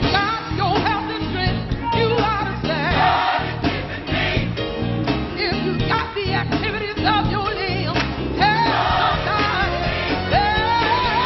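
Gospel music: voices singing a wavering melody over instrumental backing with a steady bass line.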